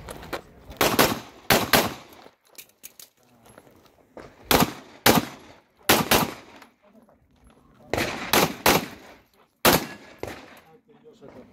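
Pistol shots fired mostly in quick pairs, a fraction of a second apart, with pauses of one to two seconds between the pairs.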